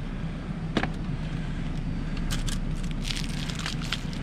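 Gloved hands handling a tangle of headphone cords and loose wire, with a few short rustling clicks of cable and plastic, over a steady low rumble.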